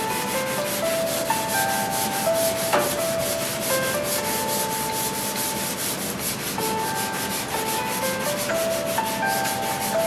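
Sandpaper rubbed by hand across the painted steel top of a metal cabinet in fast, even back-and-forth strokes, taking rust and paint down toward bare metal.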